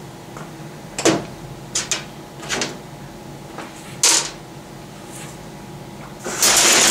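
Metal transmission parts knocking and clicking as they are handled and set down on a steel bench, several separate knocks, then near the end a louder half-second burst from a compressed-air tool on a coiled air hose.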